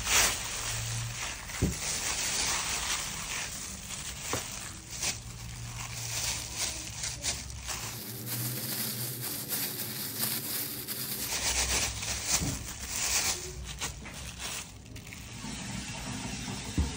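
Disposable plastic food gloves crinkling and rustling as hands knead and shape soft mashed sweet-potato dough, with many small crackles and clicks.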